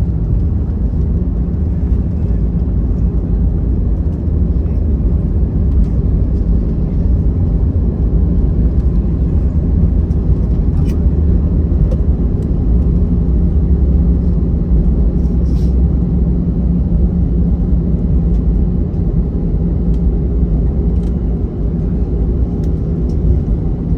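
Steady low rumble inside the cabin of an Airbus A320 rolling along the runway after landing. Its CFM56-5B engines and wheels carry the noise, with a few faint ticks.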